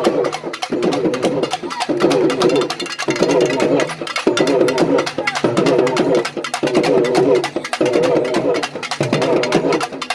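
An urumi melam ensemble playing: fast drum strokes under the urumi drums' wavering tone, which comes in repeated phrases of about a second each.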